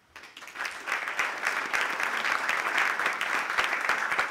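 Audience applauding, starting right away and swelling within about a second into steady clapping.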